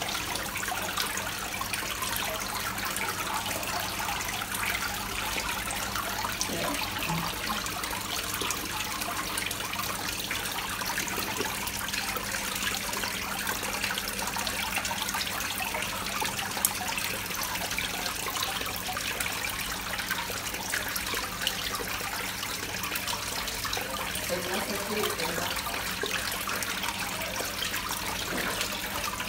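Water running and splashing steadily into a koi pond, with a steady low hum underneath and a single sharp tap about halfway through.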